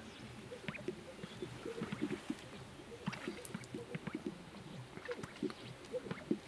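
Greater sage-grouse males strutting on a lek: a steady run of overlapping short, low pops from their inflated chest air sacs, with sharper clicks scattered among them.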